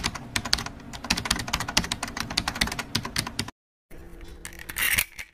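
Keyboard-typing sound effect for a typed-out title animation: a fast run of key clicks that stops about three and a half seconds in. A short swell of noise follows near the end.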